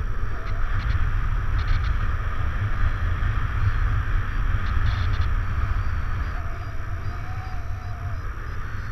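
Wind rushing over a camera microphone on a paraglider in flight: a steady low rumble with a hiss above it. A faint wavering whistle comes in for about two seconds near the end.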